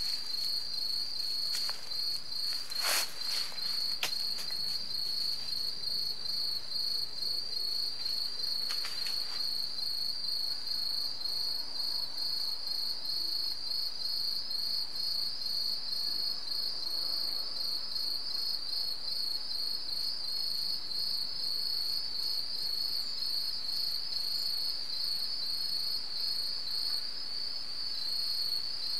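Insects chirping in a steady, rapidly pulsing high trill without pause, with a few brief rustles in the first several seconds, the loudest about three seconds in.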